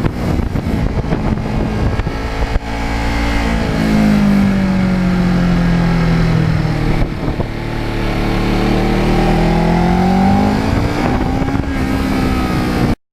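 Kawasaki Ninja 650R's parallel-twin engine running under way. Its pitch sinks steadily for a few seconds, then climbs again as it is revved back up, and eases off a little near the end.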